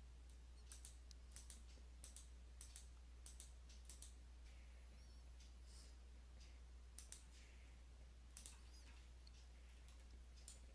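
Faint, irregular computer mouse clicks, a few at a time with gaps between them, over a low steady hum.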